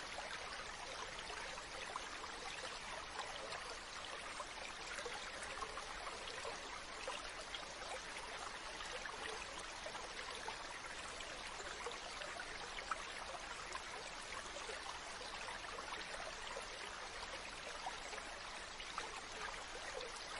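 Running water of a stream flowing over rocks: a steady, unbroken rush with small splashes flecked through it.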